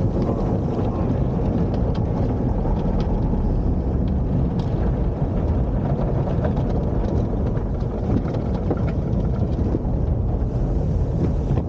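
Automatic car wash heard from inside the car's cabin: a steady low rumble of water spray and cloth brushes washing over the windshield and roof, with scattered light knocks.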